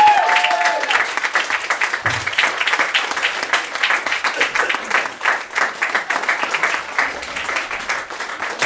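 Audience applauding with dense, steady clapping. In the first second, a man's voice making sliding, pitch-bending sounds into a microphone trails off under the applause.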